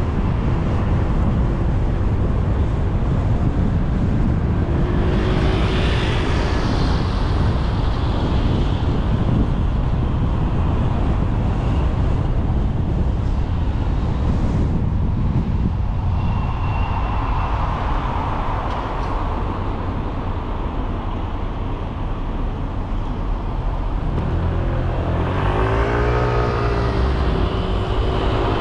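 A car driving along a city street: a steady low rumble of tyres, engine and wind noise. There is a brief swell about five seconds in, and near the end an engine rises and falls in pitch.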